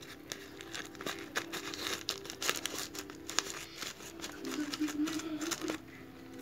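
Crinkling and tearing of a black plastic courier mailer wrapped in packing tape as it is cut open with scissors: a steady run of irregular crackles and snaps.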